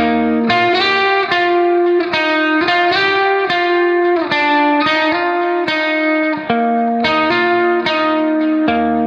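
Instrumental background music, a guitar playing sustained notes that change about twice a second.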